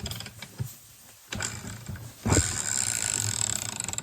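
Dirt bike kickstart mechanism in the opened engine case clicking as it is worked: a few scattered knocks, then a fast run of ratchet clicks from a little past halfway. The owners wonder whether a spring has come out.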